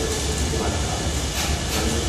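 Motor-driven fillet welding carriage travelling along a steel wall on a steel plate, not welding: its drive motor and wheels make a steady rumbling, hissing run.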